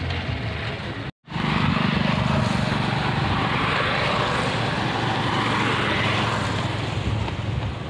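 A motorcycle engine running steadily as it rides along the road past the microphone, after the sound drops out for a moment about a second in.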